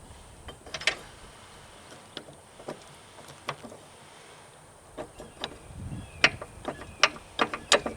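Scattered metallic clicks and clinks of hand tools and steel parts being handled, sparse at first and coming more often in the second half.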